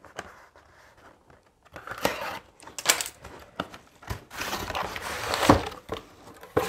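A cardboard subscription box being opened by hand. After a quiet second or so come short scrapes and tears of cardboard, then the lid flaps folding back with a rustle of paper packing and a sharp knock near the end.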